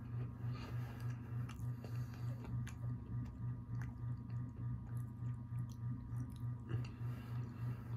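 Close-up chewing of a pan dulce cookie, with small crunchy clicks scattered through it. Under it runs a low hum that pulses about three times a second.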